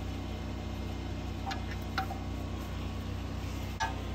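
A few faint, light metallic clicks of metal parts and tools being handled, over a steady low hum.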